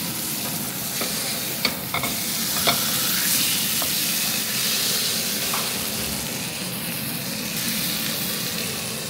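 Bone-in chop sizzling as it sears in hot fat in a frying pan, a steady hiss. A few light clicks and scrapes come in the first few seconds as a spatula works against the pan.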